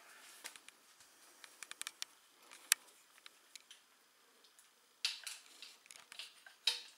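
Faint scattered clicks and ticks from handling and movement, with one sharp click near the middle, then rustling from about five seconds in and again near the end.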